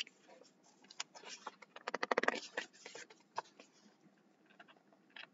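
Paper rustling and light taps from a picture book being handled and its pages turned, with a louder burst of rustling about two seconds in.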